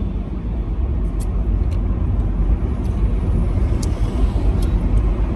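Car road noise heard from inside the cabin while driving: a steady low rumble of engine and tyres.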